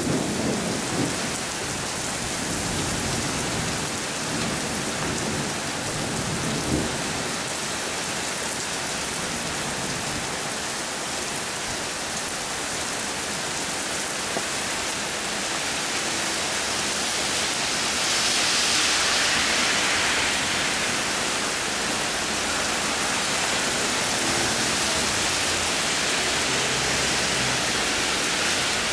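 Heavy downpour hissing steadily, with low thunder rumbling in the first few seconds. The rain grows louder for a few seconds about two-thirds of the way through.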